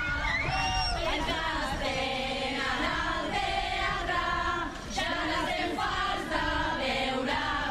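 A chorus of voices singing a carnival song together, holding long notes that step from pitch to pitch, with a short break about five seconds in.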